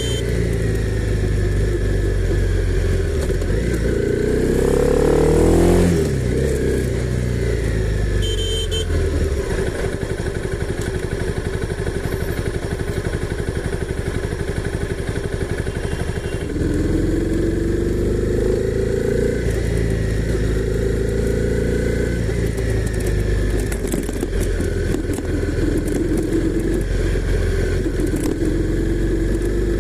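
Honda CB300R's single-cylinder engine running and pulling up in pitch several times, each climb falling back. The loudest climb peaks about six seconds in. Between about ten and sixteen seconds it runs steadily at lower revs.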